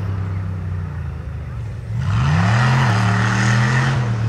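Off-road rock racing buggy engine revving: steady, then the pitch climbs about two seconds in and holds at higher revs, louder, with added rushing noise.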